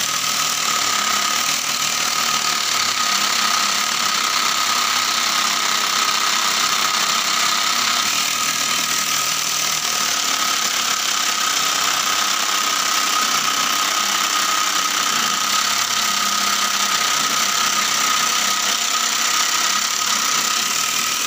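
Homemade mini scroll saw driven by a small 12-volt DC motor, running steadily with a high whine while its blade saws through a thick wooden board.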